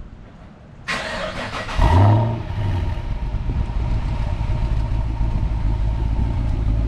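Chevy SS's 6.2-litre LS3 V8 cold-starting: the starter cranks about a second in, the engine catches and flares up in revs about two seconds in, then settles into a steady idle.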